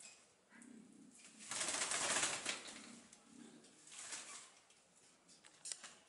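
Nicobar pigeon's wings flapping and rustling in leafy branches at its nest: a loud burst of about a second starting about a second and a half in, and a shorter one about four seconds in.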